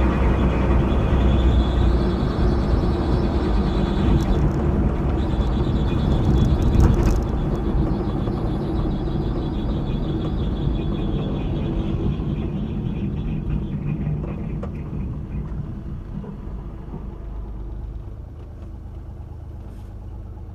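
Honda Acty HA-3 running, a steady engine rumble with a high whine that climbs in pitch over the first few seconds, holds, and fades away as the vehicle winds down; the whine may be the abnormal noise being checked.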